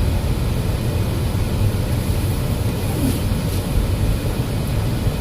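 Steady low rumble of engine and road noise inside the cabin of a moving Ford Explorer.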